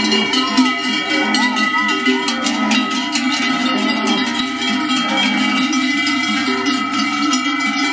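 Many large cowbells on a herd of cows clanging as the animals walk, the bells swinging with each step. Their ringing overlaps into a dense, unbroken clatter of different pitches.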